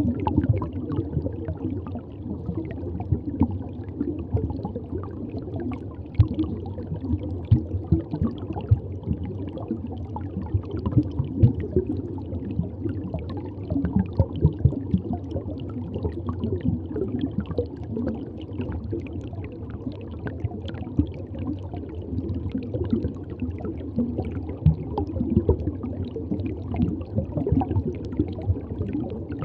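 Reef aquarium water bubbling and gurgling: a steady low rush with many small, irregular pops.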